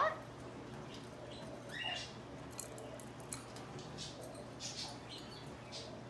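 Budgies chirping softly now and then, short high calls with one clearer chirp about two seconds in, plus a couple of light clicks.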